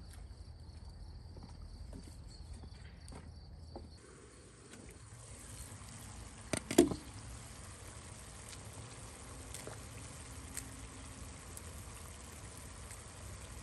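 Kitchen cooking sounds: a faint steady hiss with two sharp knocks close together about six and a half seconds in.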